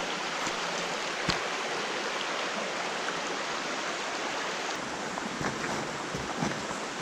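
Small creek's running water, a steady rushing hiss, with one sharp knock about a second in and a few low thuds in the last two seconds.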